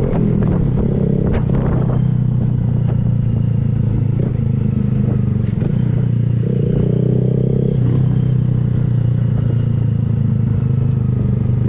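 2023 Honda Grom's single-cylinder engine running through an aftermarket Kemimoto exhaust while being ridden, holding a fairly steady speed with a small change in tone partway through.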